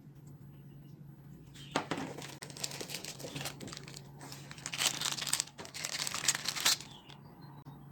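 Crinkling and rustling handling noise, in irregular bouts from about two seconds in until near the end.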